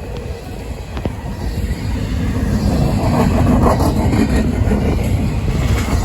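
CSX I038 double-stack intermodal freight train rolling past, its steady rumble half buried under heavy wind buffeting the microphone. The noise swells about two seconds in.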